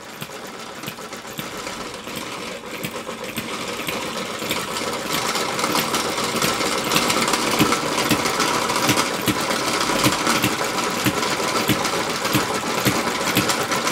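Stirlingkit B01 ball-top vertical hit-and-miss model engine running fast with a rapid, even mechanical clatter while it belt-drives a model windmill, growing louder over the first several seconds and then holding steady. It is running too fast for the windmill and jumps around on the bench.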